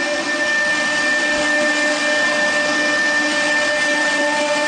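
Fulltek PA-3713 CNC machining center's router spindle running at high speed while machining solid wood door parts: a steady whine of several tones over a constant hiss.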